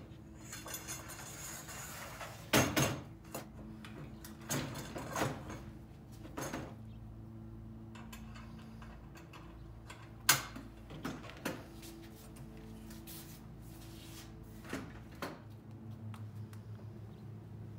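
Aluminum cart frame and balloon wheels being set down and shifted on a plywood bench: scattered knocks and clunks, the sharpest about ten seconds in, over a steady low hum.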